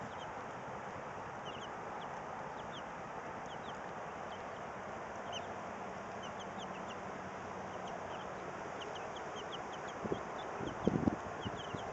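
Flock of White Leghorn hens making many short, high calls over a steady background hiss, with a few louder bumps near the end.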